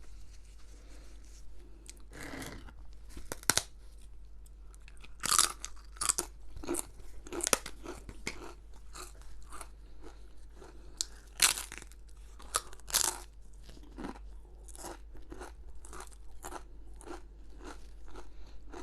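Close-up crunching and chewing of crisp food, a string of irregular sharp crunches with a few louder bites.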